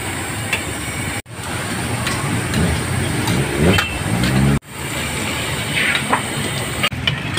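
Busy street noise: a steady din of traffic with scattered clinks, cut off abruptly and resumed twice. Midway, a pitched sound rises for about a second.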